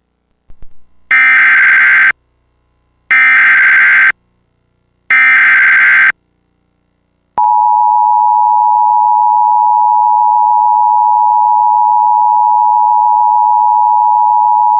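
Emergency Alert System alert tones: three loud one-second bursts of SAME header data, a harsh digital screech repeated about a second apart, then the two-tone EAS attention signal, a steady piercing tone held for about eight seconds. Together they announce an incoming severe thunderstorm warning.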